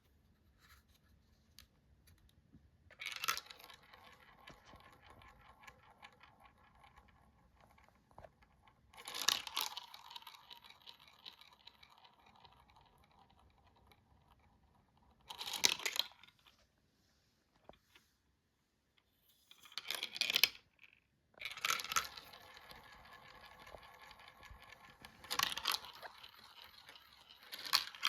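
Small marbles rolling and clattering along a marble run track: about seven loud clattering bursts a few seconds apart, each trailing off into a quieter rolling rattle.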